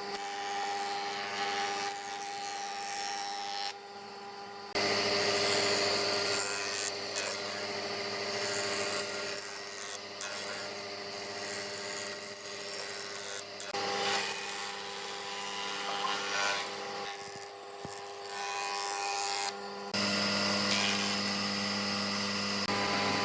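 Woodworking power tools running steadily and working wood, a machine hum over the noise of cutting or sanding. The sound switches abruptly to a different machine about four, five, fourteen and twenty seconds in.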